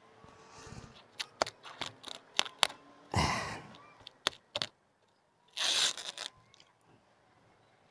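A run of sharp clicks and knocks, then two short bursts of crinkling and tearing as clear plastic wrapping is pulled open by hand.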